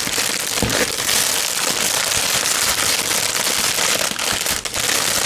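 A courier mailing bag crinkling and crackling steadily as it is handled, unfolded and opened.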